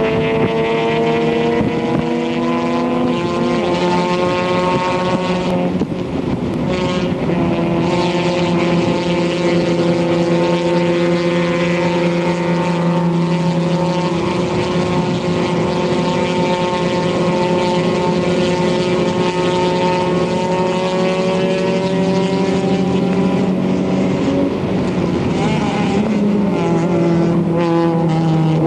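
Isuzu Stylus race car's four-cylinder engine pulling hard under racing load, its pitch climbing slowly through long stretches. The revs drop and pick up again about six seconds in and once more near the end.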